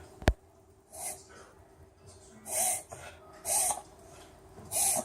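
A Bichon reverse sneezing: four forceful, noisy inhalations through the nose, about a second apart, each with a short rising-and-falling pitched note. A single sharp click comes just after the start.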